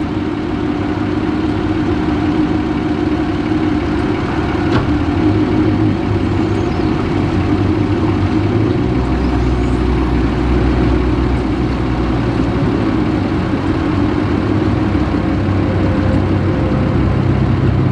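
Outboard motor on a fiberglass bass boat idling steadily while the boat backs off its trailer into the water. About halfway through, a deeper low hum joins in and stays.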